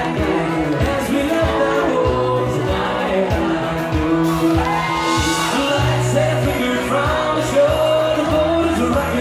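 Live country band playing: a male voice singing over piano accordion, bass and guitar, with a steady drum beat.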